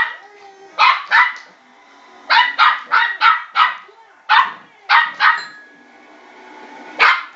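West Highland White Terrier puppy barking in short, sharp barks, in quick runs of two to five, about a dozen in all, with a pause of nearly two seconds before the last pair.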